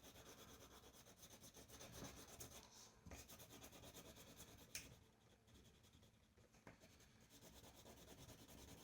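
Faint rubbing of colouring strokes on paper, quick back-and-forth shading, pausing for a couple of seconds just past the middle.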